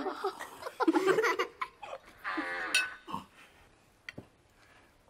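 Voices laughing and giggling without clear words, with a light clink of cutlery.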